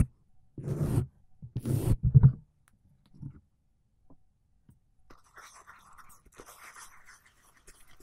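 A shaving brush loaded with lather is swept twice over the cream-covered microphone, giving two loud, rough, close-up rubbing strokes about half a second and a second and a half in. From about five seconds there is faint, light scratching.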